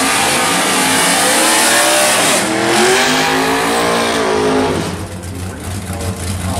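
Drag car engines revving hard, the pitch climbing and falling back, with a loud hissing rush over them for the first few seconds. The sound drops noticeably quieter about five seconds in.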